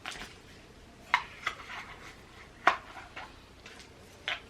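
Light clicks and taps of small hard objects being handled, about six of them spread over a few seconds, the sharpest about a second in and near the middle: AirPods packaging and charging cable being picked up and put down.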